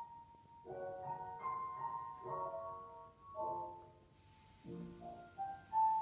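Slow piano accompaniment: a series of soft chords a little under a second apart, with notes held over them and a short pause about four seconds in.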